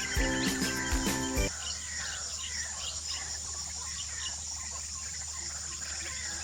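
Background music cuts off about a second and a half in. Then a steady high insect drone is heard, with a bird's short falling chirps repeated two or three times a second.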